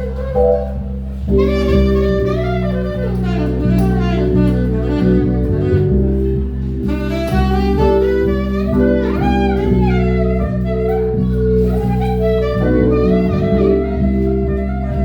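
Instrumental jazz-style music: a wind-instrument lead, likely saxophone, plays a bending melody over held bass notes.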